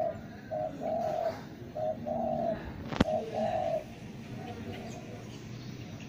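Spotted dove cooing: low two-part phrases, a short note then a longer one, repeated about every second and a quarter, with the cooing fading a little before four seconds in. A single sharp click sounds about three seconds in.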